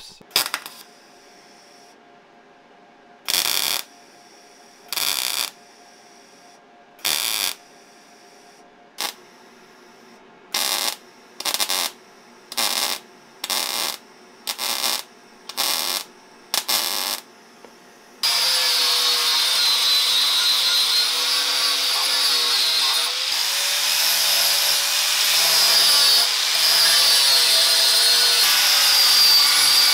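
A wire-feed (MIG) welder laying about a dozen short tack welds on thin panel steel, each a brief crackling burst about half a second long with pauses between. About 18 seconds in, an angle grinder starts and runs continuously with a steady high whine, grinding down the fresh welds on the steel.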